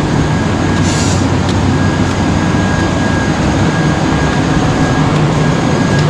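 A loud, steady mechanical rumble with a low hum running under it.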